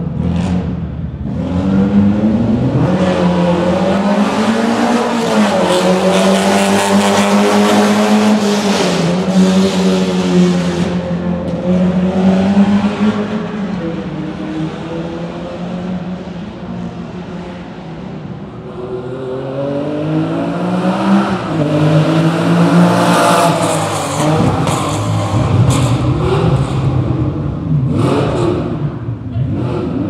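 Rally car engines driven hard through a special stage, the revs climbing and dropping with each gear change. Loud for the first dozen seconds, fading in the middle, then building again as a car comes through.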